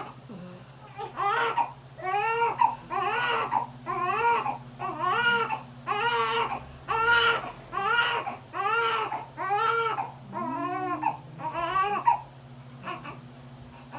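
Newborn baby crying just after delivery: short arched wails, one after another a little more than once a second, stopping about twelve seconds in. A steady low hum runs underneath.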